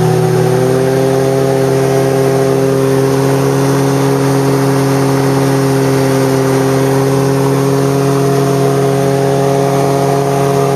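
Streak Shadow light aircraft's two-stroke engine and propeller droning steadily in flight, heard from inside the cockpit with a haze of airflow noise. The engine note steps up slightly in pitch about half a second in, then holds.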